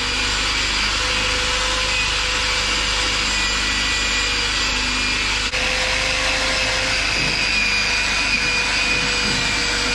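Handheld electric power tool running steadily while abrading the riveted steel plating of a barge hull, stripping rust and old paint: a continuous gritty grinding with a steady whine through it.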